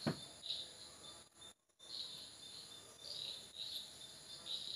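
Crickets chirping in short high pulses, a couple a second, over a faint steady high trill. A single light tap at the very start.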